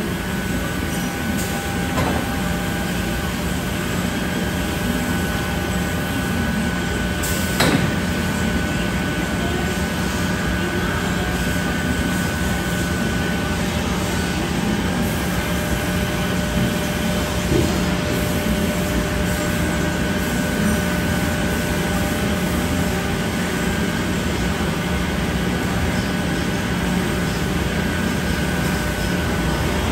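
Steady hum of a Biesse Rover A CNC router line's machinery running, with a few steady whining tones under it, the highest of which fades out about halfway. A single sharp click comes about seven and a half seconds in.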